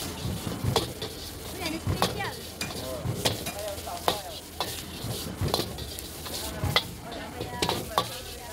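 Metal ladle and spatula clanking and scraping against a wok as food is stir-fried, about two strikes a second, over a steady sizzle.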